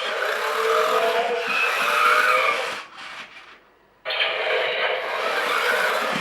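Mattel U Command BatPod remote-control toy running, with a whirring, engine-like sound. It dies away about three seconds in and starts again suddenly about a second later.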